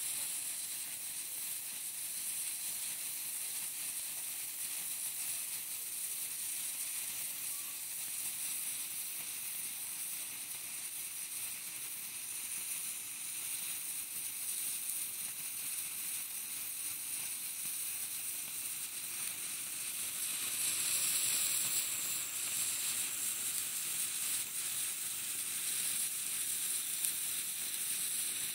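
Two sparklers burning with a steady, high fizzing hiss, which grows louder for a few seconds about two-thirds of the way through.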